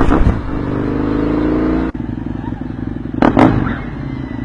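Husqvarna Nuda 900R's 900 cc parallel-twin engine held at raised revs, then dropping sharply about two seconds in to a lumpy, uneven idle, with a pair of sharp cracks from the exhaust about three seconds in.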